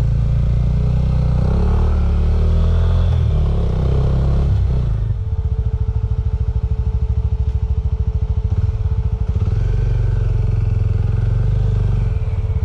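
Small Suzuki motorcycle's engine revving and changing pitch as the bike pulls away and gathers speed for about five seconds, then running steadily while riding along.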